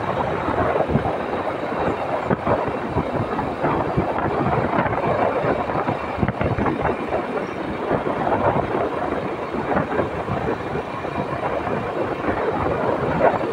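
Steady rushing noise of a motorbike ride: wind buffeting the microphone, mixed with engine and road noise.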